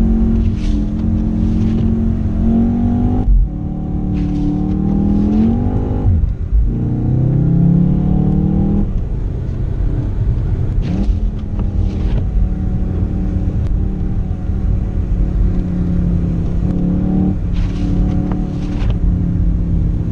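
Car engine running while driving, climbing in pitch under acceleration and dropping back several times as the gears change. Short swishing noises come in pairs every few seconds.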